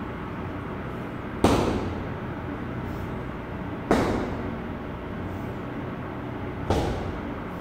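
Punches landing on a hanging heavy punching bag: three sharp thuds a couple of seconds apart, each with a short echo, over a steady background noise.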